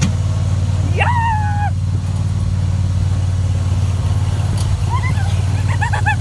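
Riding lawnmower engine running steadily. A high-pitched rising-then-falling cry sounds about a second in, and several short high cries come near the end.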